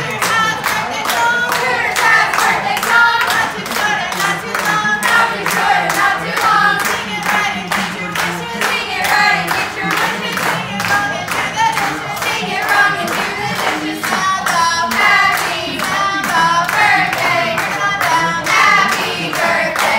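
A group of young women singing a birthday song together in unison, clapping their hands in a steady beat throughout.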